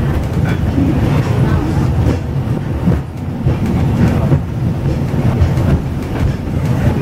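Peak Tram funicular car running on its rails, heard from inside the car: a steady low rumble with occasional clicks from the wheels on the track.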